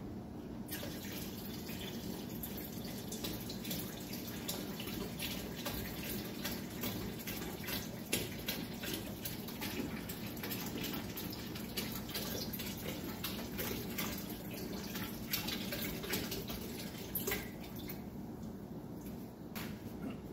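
Liquid poured from a carton into a large stainless steel stockpot: a steady pouring and splashing with small uneven glugs. It stops a few seconds before the end.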